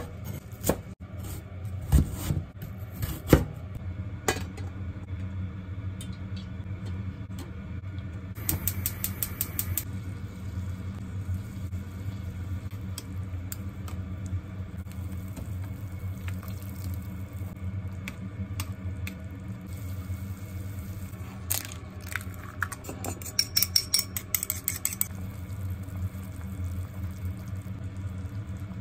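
A chef's knife chopping mitsuba stems on a wooden cutting board, a few sharp strikes in the first seconds and a fast run of taps around nine seconds in. Then chicken and onion simmer in dashi in a small metal pan, over a steady low hum, with a brisk run of clicks around twenty-three seconds in.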